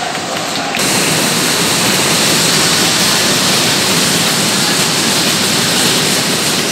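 Football stadium crowd cheering, growing suddenly louder about a second in and staying loud and steady.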